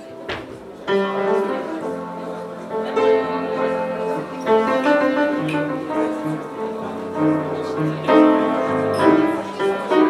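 Belarus upright piano played live: a slow melody of held notes over a moving bass line. The playing dips briefly about a second in, then carries on.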